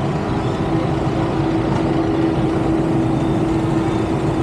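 Street traffic: motor vehicles running close by, with a steady engine hum.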